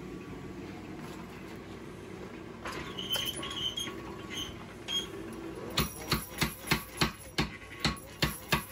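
Power hammer striking hot steel in a run of evenly spaced sharp blows, about three a second, starting past halfway, as a finger well is forged into a knife bar with round stock. Before the blows there are a few lighter ringing metal clinks over a low steady hum.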